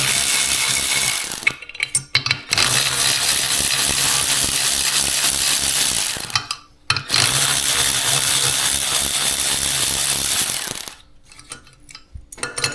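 A power tool running loud and steady in three long stretches with short stops between them, while valve springs are taken off a cylinder head. It cuts out near the end, leaving a few light metal clicks.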